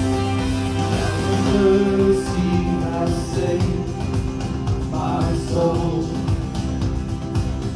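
Live praise and worship music: a band playing held chords, with singing.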